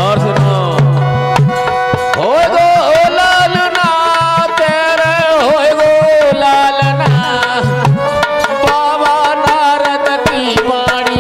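Indian folk music: hand drums in the tabla family play a busy rhythm under a melody with sliding, wavering notes.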